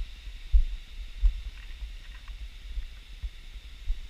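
Wind buffeting an action camera's microphone: irregular low rumbling thumps over a faint steady hiss.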